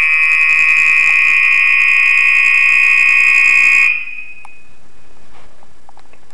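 Building fire alarm horn sounding a loud, harsh steady tone during a scheduled alarm test, then cutting off abruptly about four seconds in.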